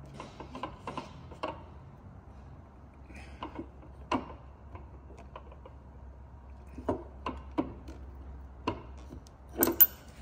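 Bolt cutter jaws gripping and working a steel feather key out of a servo motor shaft's keyway: a scattered run of sharp metal clicks and snaps. The loudest is a close double snap near the end, as the key comes free.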